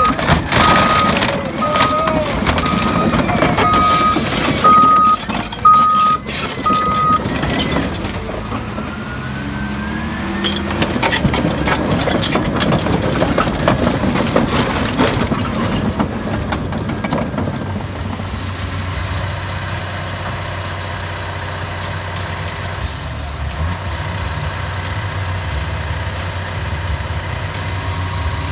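Heavy diesel construction equipment crushing a car: a reversing alarm beeps about once a second for the first seven seconds over repeated crunching and banging of metal, which continues until about 17 s in. After that the diesel engine runs steadily.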